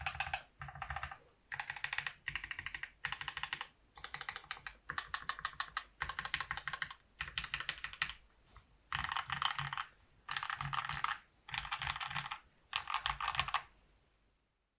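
Voice65 mechanical keyboard with lubed Gateron Black Ink switches on an aluminium plate and GMK keycaps, typed in rapid flurries of keystrokes. Each burst of clacks lasts about half a second to a second, with short pauses between, and the typing stops about a second before the end. Some resonance from the desk colours the sound.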